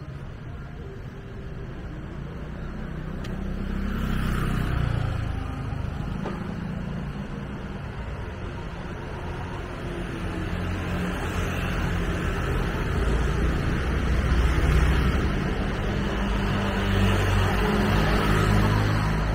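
Street traffic: engines of passing vehicles humming, swelling about four seconds in and again toward the middle to late part.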